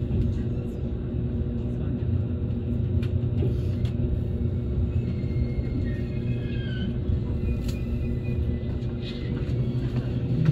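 Steady low rumble with a constant hum, and a few faint high wavering sounds around the middle.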